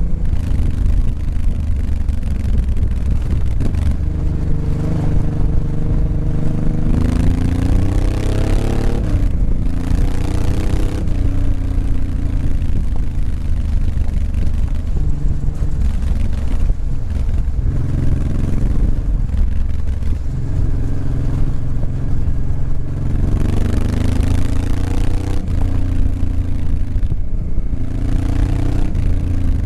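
Motorcycle engine running steadily, its pitch rising a few times as the bike accelerates on a gravel track, with rushing wind noise on the microphone.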